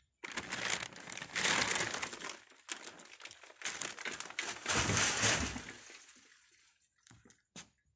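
A large bag being tipped out onto the ground: the bag crinkling and its contents pouring and spilling out in two main surges, dying away about six seconds in, with a few small knocks near the end.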